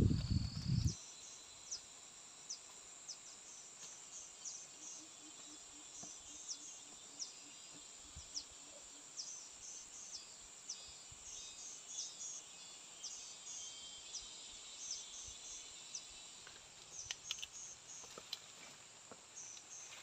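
Faint countryside ambience: many short, high chirps from small birds and insects over a soft steady hiss. A loud low sound, the tail of music, cuts off about a second in, and a few light clicks come near the end.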